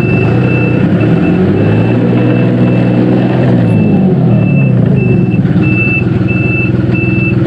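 Dongyang TX653 tractor's diesel engine running while the tractor is driven, its note dipping and climbing back up between about one and five seconds in. A high electronic beeper sounds about twice a second over it.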